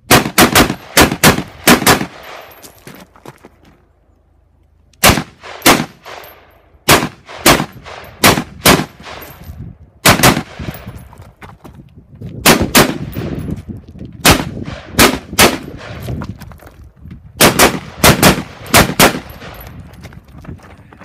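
Semi-automatic rifle fired in rapid strings of shots, each shot cracking with an echoing tail. There is a pause of about three seconds after the first string, then more strings with shorter breaks.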